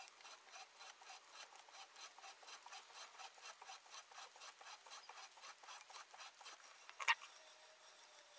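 HeliCoil tap turned by hand with a tap wrench, cutting threads in a cast iron hole: a faint, rapid, even scraping tick, about five a second, as the tap re-cuts the existing stripped threads deeper. A louder click about seven seconds in.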